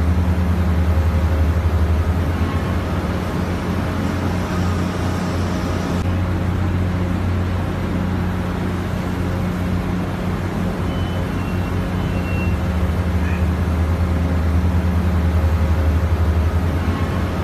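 Harbour crane machinery running with a steady low hum while a shipping container is lifted.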